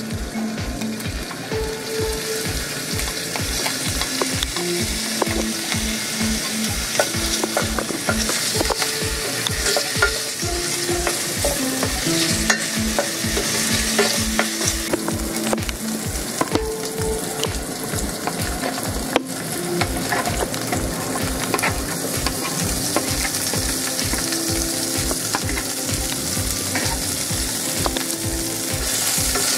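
Chopped beef sausage frying in hot oil in a pan with a steady sizzle, stirred and scraped with a wooden spatula.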